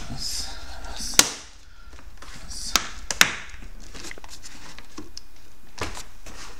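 Plastic retaining clips of a car's rear door trim panel snapping loose as the panel is pried off the door: a few sharp snaps, the loudest about a second in, two close together near three seconds, and a weaker one near the end.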